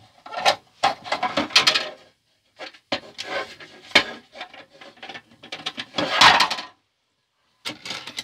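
Hard plastic parts of a vintage Snake Mountain toy playset being handled and set on a tabletop: irregular clicks, knocks and rubbing, with a sharp knock about four seconds in.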